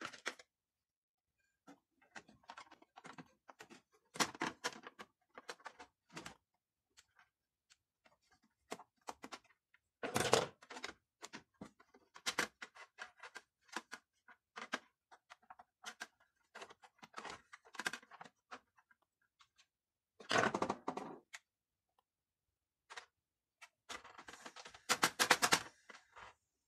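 Irregular plastic clicks, knocks and short scrapes from handling the black plastic three-disc carousel tray of a CD changer and working on it with a screwdriver, with louder bursts of rattling about ten seconds in, around twenty seconds in and near the end.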